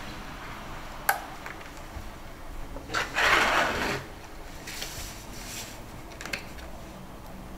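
Plastic and paper medical packaging handled by gloved hands: a click about a second in, a louder rustling tear lasting about a second around three seconds in, then lighter rustles and another click.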